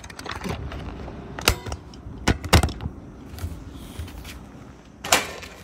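Sharp clicks and knocks of a phone being handled and adjusted while it films, about five in all, with the loudest about two and a half seconds in, over a low rumble.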